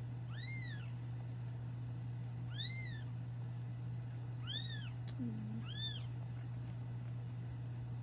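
Newborn kitten mewing: four high, thin squeaky cries, each rising and then falling in pitch, a second or two apart, over a steady low hum.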